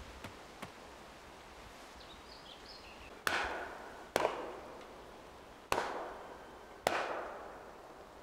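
Wooden mallet striking the wooden cover board of a tree hive's opening in an oak, four hard knocks that close the hive, each hit followed by a short ringing decay.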